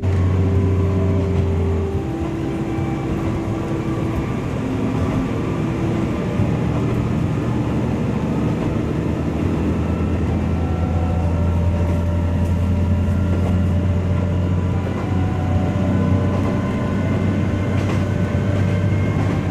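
Kanto Railway KiHa 310 diesel railcar's DMH17 eight-cylinder diesel engine running under power, heard inside the car: a steady low hum with engine tones that shift pitch every few seconds, over the noise of the train on the rails.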